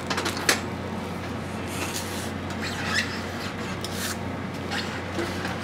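Handling noise: hands rubbing and shifting things, with a few light clicks, over a steady low hum.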